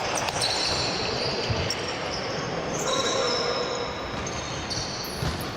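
Basketball game on an indoor court: a ball bouncing with a few low thuds, and short high-pitched squeaks of sneakers on the floor over a steady crowd-and-hall noise.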